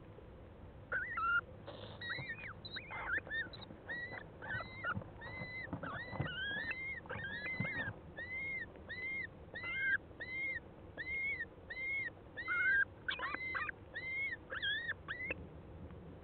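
Little owls calling inside a nest box: a long series of short calls that each rise and fall in pitch, about one and a half a second, starting about a second in and stopping shortly before the end.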